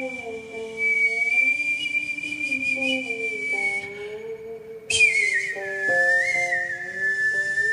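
Xiao, Chinese classical mouth whistling through a microphone: a long high held note that breaks off about four seconds in, then returns a second later sliding down to a lower held note. Beneath it a guqin plays low notes that slide between pitches.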